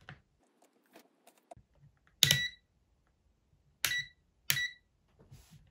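Fervi T053 digital multimeter giving three short, high beeps as its rotary function switch is turned, one beep for each new setting to confirm the switch has been made; the first comes about two seconds in, the other two close together near the end. A few faint clicks of handling come before the beeps.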